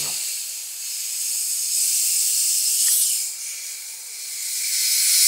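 Gas hissing out of a bottle of cloudy fizzy drink as its cap is eased open, in two long surges, the second building near the end.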